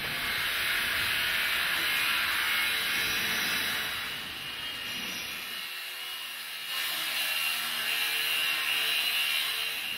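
Angle grinder cutting steel: a high, hissing whine in two long runs, with a quieter lull about halfway through.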